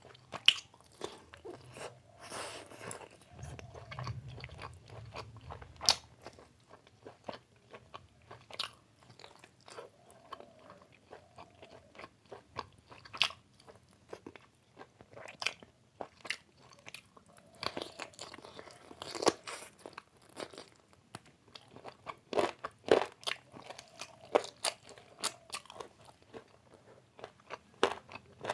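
Close-miked eating sounds: biting and chewing mouthfuls of chicken biryani and chicken leg curry, with irregular sharp crunches and wet mouth clicks. A faint low hum runs underneath.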